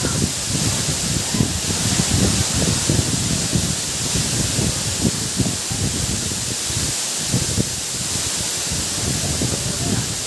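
Water rushing over a dam's overflow, a steady loud rushing noise with an uneven low rumble.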